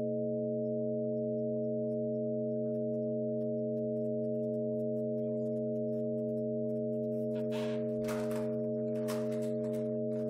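Electronic drone from guitar and MIDI controller: a steady chord of several unchanging pure tones held throughout. Near the end three short scratchy noises, the large balloon being rubbed, sound over it.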